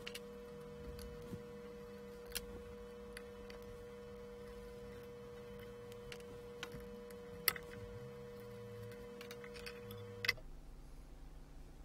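Scattered small clicks and ticks of an Allen key and screws as a laser module is unscrewed from its metal bracket, the loudest about two, seven and ten seconds in. A faint steady hum runs under them and stops suddenly about ten seconds in.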